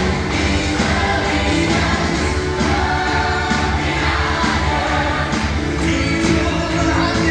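Musical-theatre cast singing together as an ensemble over an amplified live band.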